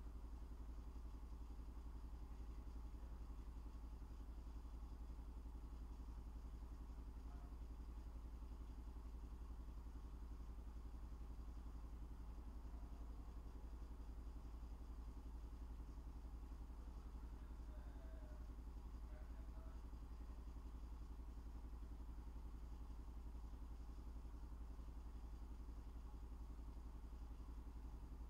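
Faint steady low hum with a buzz, unchanging throughout.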